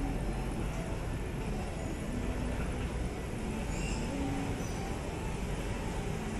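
Steady low rumble of railway-station and city background noise, with a brief high chirp about four seconds in.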